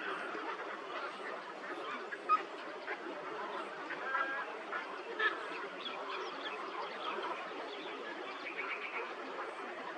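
Many birds calling at once in a steady, overlapping chatter of short calls, with a few louder single calls standing out.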